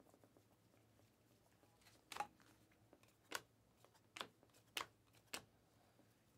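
Trading cards flipped one at a time through a stack held in the hands: about five short, sharp card flicks spaced through the quiet, the first and strongest about two seconds in.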